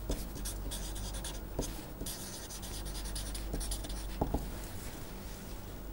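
Felt-tip permanent marker writing on paper: a run of short, uneven scratchy strokes as the letters are formed, with a few light taps of the tip, two of them close together about four seconds in.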